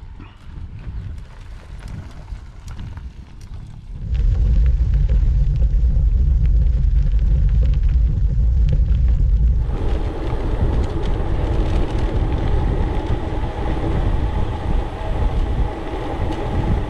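Gravel bike riding over a gravel track: a dense low rumble of tyres on gravel and wind on the action-camera mic. It starts quieter with light ticks, turns loud about four seconds in, and becomes a brighter, hissier rumble about ten seconds in.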